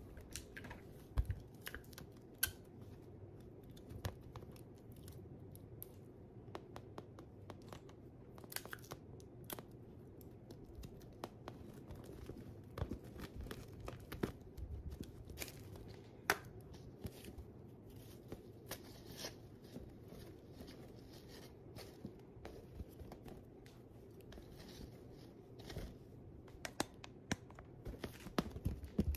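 A clear plastic bubble balloon being handled by hand: scattered crinkles, rubs and light clicks of fingers on the plastic film, over a steady low hum.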